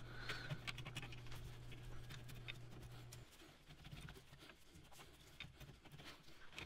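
Faint scratching and light clicks of a rear brake caliper being wiggled and levered off its disc, played sped up. A low hum underneath stops about three seconds in.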